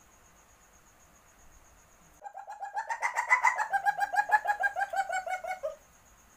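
Civet in heat giving its mating call: a rapid chattering run of about eight pulses a second that grows louder, drops slightly in pitch near the end, and stops after about three and a half seconds. A faint steady high insect trill is heard before and after the call.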